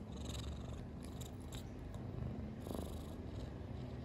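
Kitten purring steadily, close to the microphone.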